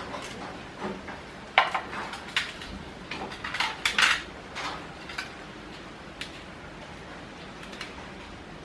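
Metal clinks and clatters of a stainless steel serving tray and a knife and fork as the tray is set down on a tiled floor and the cutlery is picked up from it. The sharpest clanks come about a second and a half in and again around four seconds in.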